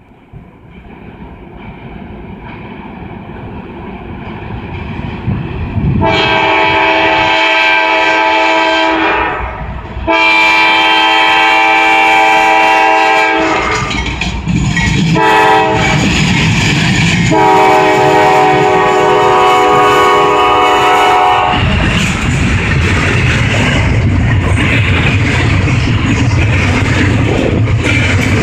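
CSX double-stack freight train led by three GE AC4400CW diesel locomotives approaching, its rumble growing louder, while the lead locomotive's air horn sounds a chord in a series of long blasts with short breaks between them. After the horn stops, the locomotives' engines and the wheels of the container cars pass close by with a loud rumble and a clickety-clack.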